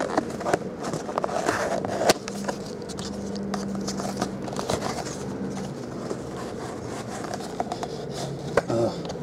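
Cardboard trading card box handled and opened by hand: scattered scrapes, light taps and rustles of cardboard, with a sharper tap about two seconds in.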